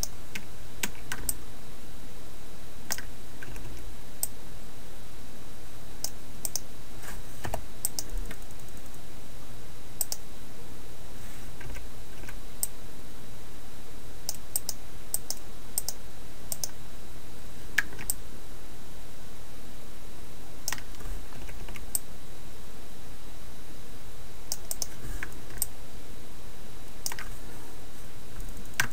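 Irregular clicks of a computer keyboard and mouse, scattered a few at a time, over a steady background hiss and low hum.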